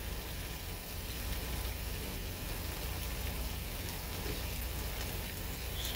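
Thin bottom round steaks sizzling in oil in a frying pan: a steady hiss with faint crackles and a low hum underneath.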